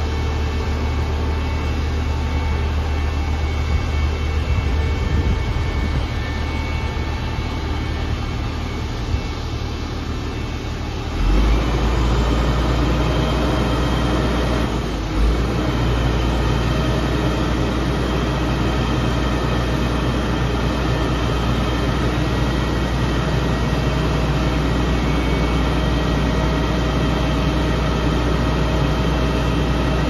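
Truck-mounted concrete boom pump's engine and hydraulics running steadily as the boom unfolds and extends. About eleven seconds in the drone steps up and stays louder.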